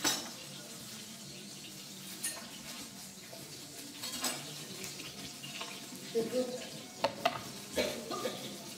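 Kitchen utensils, pans and plates clinking and knocking at a cooking station over a steady sizzling hiss. A sharp clatter comes at the very start, with a few more clicks and knocks after it and a cluster of them near the end.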